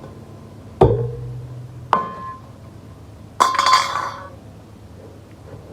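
Three sharp clinks with short ringing tails, roughly a second apart; the third is a longer jangling clatter.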